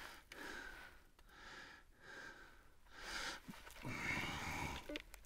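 A man breathing, a run of quick breaths in and out roughly one a second, the loudest about four seconds in; a sharp click at the very start.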